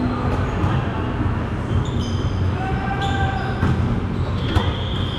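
Indoor volleyball rally on a hardwood court: the sharp smacks of a volleyball being hit, with the loudest about four and a half seconds in, and short high squeaks of sneakers on the floor.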